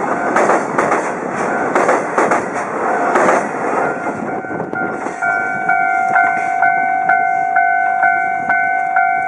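The last wagons of a container freight train clatter over the rail joints of a steel truss bridge, and the clatter dies away about three and a half seconds in. A steady pitched electronic ringing, pulsing about twice a second, builds from about three seconds in and carries on to the end.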